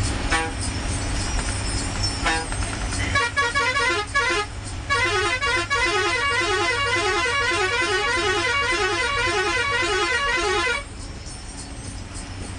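Bus's musical horn: two short toots, then a warbling multi-note horn tune of about eight seconds that stops abruptly, over the steady low hum of the Ashok Leyland diesel engine.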